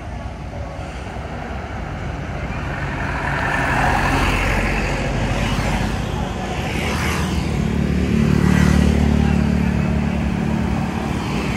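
Road traffic passing close by: motorcycle and other vehicle engines rise and fade with tyre noise, and a deeper engine drone swells about eight seconds in.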